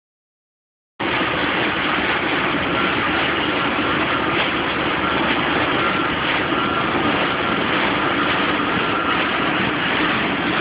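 Steady welding noise mixed with wind on the microphone, a dense, unbroken hiss that starts suddenly about a second in.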